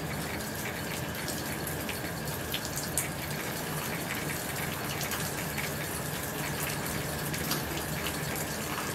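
Steady rain on a tin roof and gutter: a constant hiss of falling water dotted with many sharp drop taps, one louder tap about three seconds in.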